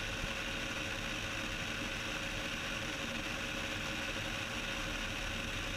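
Cessna 172's engine and propeller droning steadily in flight, faint under an even hiss.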